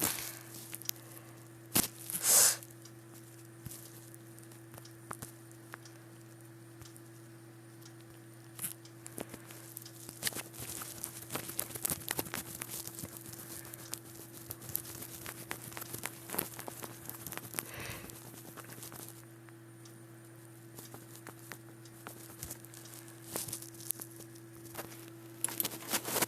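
Irregular light taps and scratchy clicks of someone colouring in a drawing app on a device, over a steady electrical hum; a louder rustling burst about two seconds in.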